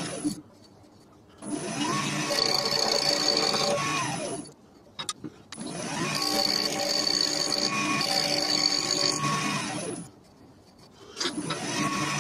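Wood lathe motor started and stopped repeatedly: each time a whine rises in pitch as the spindle spins up, runs steady for a few seconds, then falls away as it winds down. A few light knocks sound in one of the pauses.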